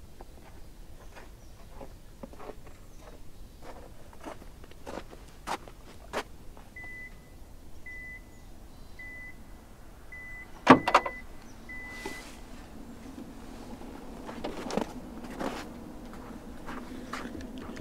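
A car's electronic chime beeping about once a second, several times, with a loud clunk about eleven seconds in. A steady low hum follows, with scattered clicks and taps throughout.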